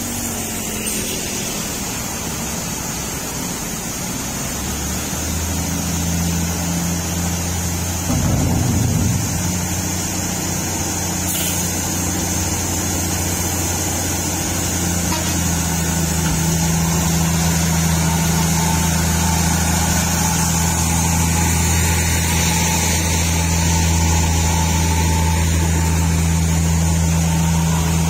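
Diesel engine of a heavy Chinese tractor truck running at low, steady revs as it crawls forward hauling a long low-bed trailer, growing louder as it comes closer. A short, louder rough rumble breaks in about eight seconds in.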